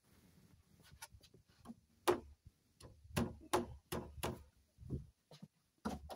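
A series of sharp, irregular knocks and clicks of a wooden block and a cordless drill being handled and set against a timber post, the loudest about two seconds in.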